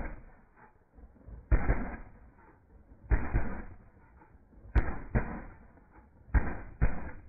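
AR-style semi-automatic 12-gauge shotgun firing six shots at uneven intervals, the last four in two quick pairs. Each shot trails off over a fraction of a second.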